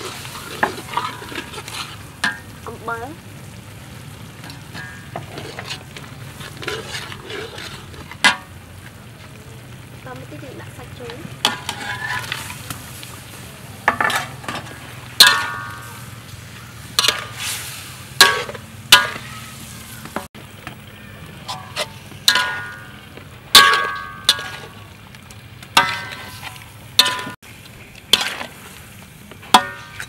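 Metal spatula scraping and striking a metal wok as stingray pieces are stir-fried, over a steady frying sizzle. The strikes ring briefly and come more often after about halfway.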